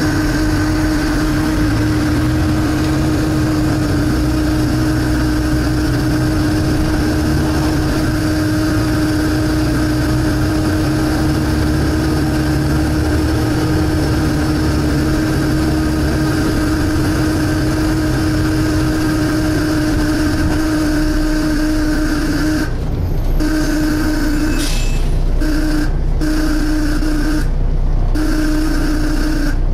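Volvo B7TL bus's diesel engine running under way, heard from inside the bus, with a loud steady suction whine over the engine rumble. Near the end the whine cuts out and back in several times in quick succession.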